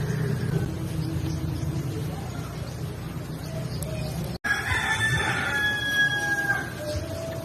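A rooster crows once, a long call of about two seconds beginning a little past halfway, over a steady low rumble. Just before the crow the sound cuts out for an instant.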